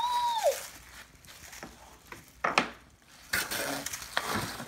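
Tissue paper rustling and crinkling as it is unwrapped from small toy trains, with a few sharp clicks, and a child's brief high voice sliding up and down at the very start.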